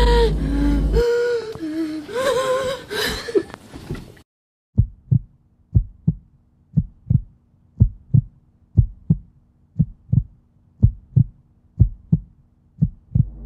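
Eerie music with gliding tones that cuts out about four seconds in. After a brief silence, a slow heartbeat sound effect thumps in pairs about once a second over a faint low hum.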